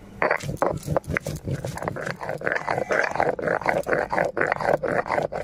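A stone roller (nora) grinding dried red chillies and garlic into paste on a flat grinding stone (shil): stone scraping on stone in a quick, even run of back-and-forth strokes.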